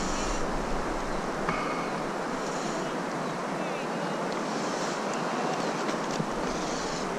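River current rushing steadily around the wading angler, with some wind noise on the microphone.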